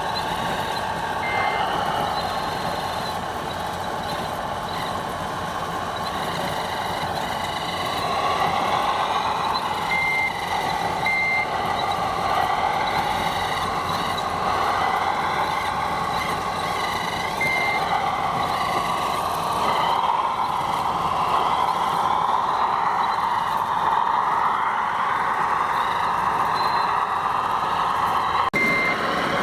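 Radio-controlled construction machines running, with the sound modules' engine noise wavering in pitch and short, scattered reversing beeps.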